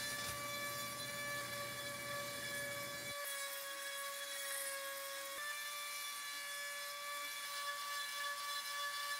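Handheld rotary tool running at high speed with a steady high-pitched whine, cutting button holes in a metal tin lid.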